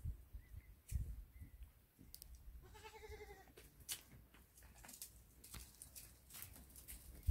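A goat bleats once, about three seconds in: a single wavering, quavering call lasting about a second. A few light clicks and knocks are scattered around it.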